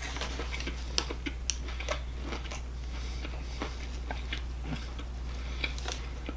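Someone biting into and chewing a Burger King spicy chicken sandwich close to the microphone: irregular soft crunches and mouth clicks, over a steady low hum.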